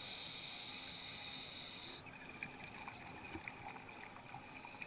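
Underwater sound picked up by a diver's camera. A steady hiss with a faint high whine cuts off sharply about two seconds in. After that come faint crackling clicks and small bubble pops.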